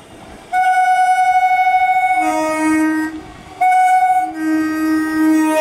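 Electric multiple unit local train's two-tone horn sounding at a level crossing approach. It gives a long high note starting about half a second in, drops to a low note, breaks off briefly, then sounds the high note again and settles into a held low note.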